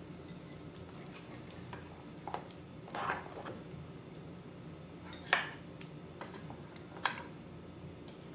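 A spoon stirring thick meat gravy in an aluminium pressure-cooker pot, with four short knocks of the spoon against the pot; the sharpest comes about five seconds in.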